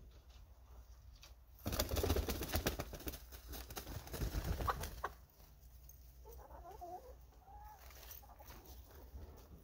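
A hen flapping her wings hard for about three seconds while being carried by hand, followed by a few clucking calls from the hens.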